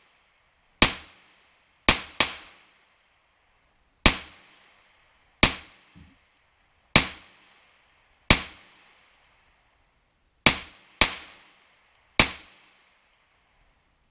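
About ten pistol shots, one of the guns a Smith & Wesson M&P 2.0, fired at an uneven slow pace by two shooters side by side. Twice two shots land close together, and each crack is followed by a short ringing decay.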